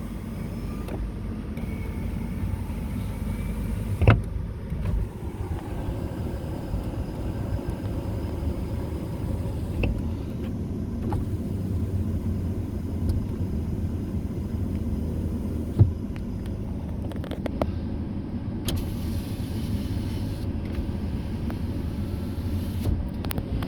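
Mazda5 switches being clicked and the power window motors running, over a steady low rumble, with several sharp clicks.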